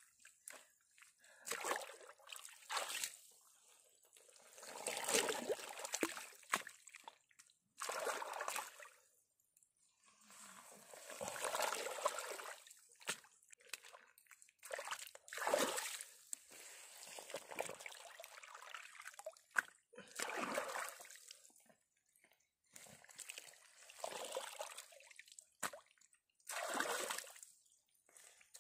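Muddy pond water sloshing and splashing in irregular bursts as a person wades through it and scoops and slaps wet mud onto a mud dike by hand.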